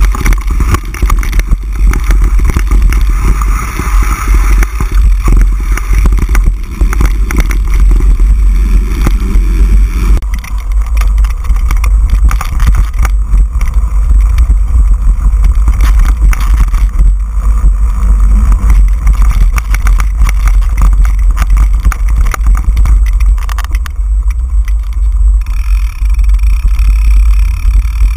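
Mountain bike ridden down a dirt forest trail, heard from an on-board camera: a constant deep wind rumble on the microphone, with irregular rattling and clattering from the bike over the rough ground.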